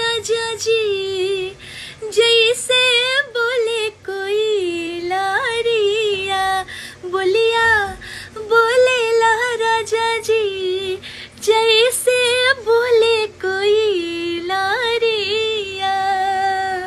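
A woman singing a Bhojpuri song solo, in long drawn-out phrases with wavering, ornamented pitch and short breaks between phrases.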